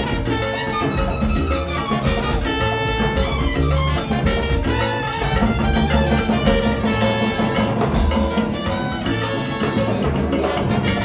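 Salsa band playing loudly, with bongos and cowbell keeping the beat under the melody instruments.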